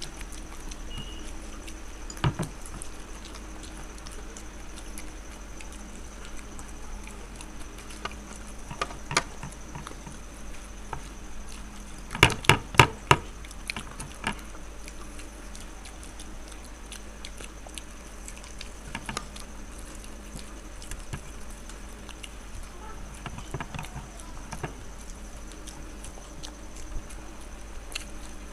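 Eating noises as egg devils (breaded, fried boiled eggs) are chewed, with scattered sharp clicks and a quick run of about four loud clicks about twelve seconds in, over a steady low hum.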